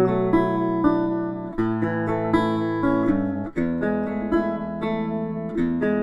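Background music: a strummed acoustic guitar playing a chord progression, the chord changing about every two seconds.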